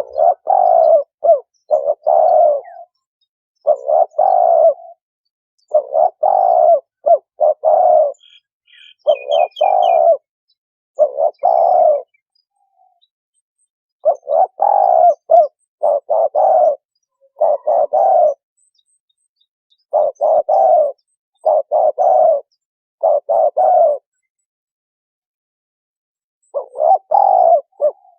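Spotted dove cooing: repeated phrases of two to four low coos, each phrase followed by a short pause, with a longer pause near the end. A small bird chirps briefly about a third of the way in.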